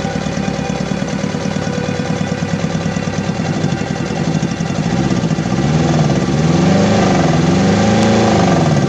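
Engine running with a misfire and vibration: a steady, rapid, uneven pulsing that gets somewhat louder about five seconds in. The owner puts the misfire down to the injectors and fuel system.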